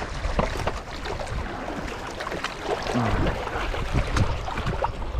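Wind buffeting the microphone and river water lapping against shoreline rocks, with scattered short clicks and knocks as a sturgeon is carried down over the stones to be released.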